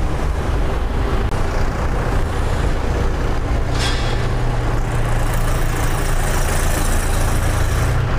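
Mahindra 575 DI tractor's four-cylinder diesel engine running steadily as the tractor drives past at low speed on its final running test after assembly. A brief hiss comes about four seconds in.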